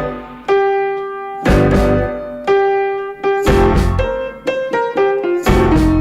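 Background music played on a keyboard: sustained chords struck about once a second, then a quicker run of notes in the second half.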